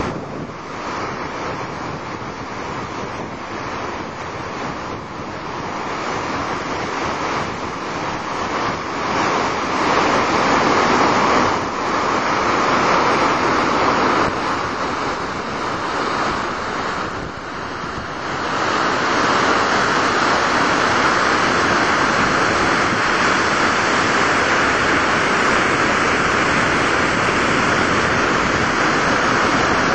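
A large, 40 m waterfall's continuous rushing roar of heavy falling water and spray, steady throughout and growing louder about two-thirds of the way through.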